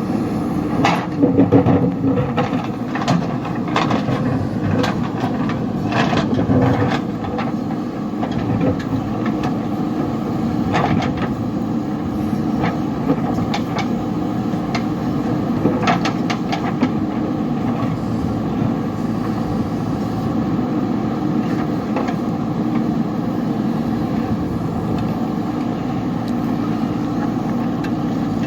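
JCB backhoe loader's diesel engine running steadily as it works, with scattered sharp knocks and clanks, mostly in the first half.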